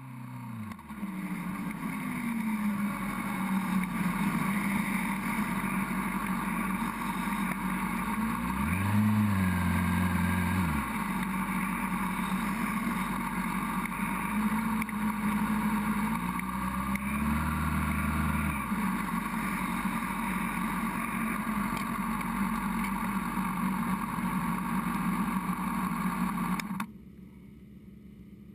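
Honda CBR600RR's inline-four engine running at speed, heard onboard under wind noise, its pitch dipping and climbing again twice along the way. Near the end the sound suddenly drops to much quieter.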